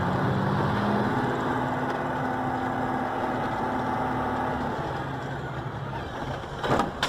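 Car engine running steadily while driving, heard from inside the cabin; the hum eases off about two-thirds of the way through. A brief knock near the end.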